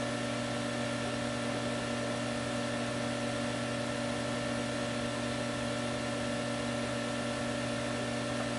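Steady machine hum: several constant tones over an even hiss, unchanging throughout.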